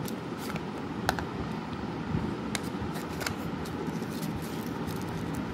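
A few sharp plastic clicks and taps as the earbud charging case and its black plastic packaging tray are handled, the loudest about a second in. Under them runs a steady low background rumble.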